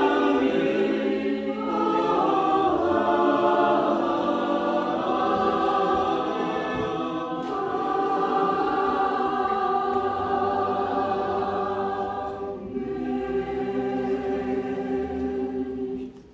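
Mixed church choir singing in long, sustained chords, the last of which is released abruptly near the end.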